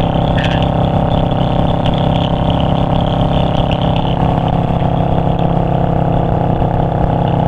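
Yamaha V-Star 650's V-twin engine running steadily at cruising speed, heard from the saddle with wind rushing past.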